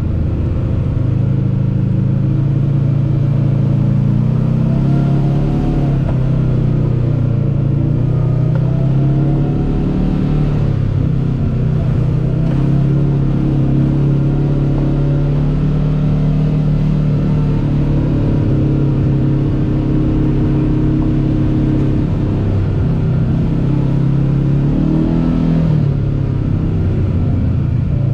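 Kawasaki KRX 1000 side-by-side's parallel-twin engine running under way, its pitch rising and falling several times with the throttle.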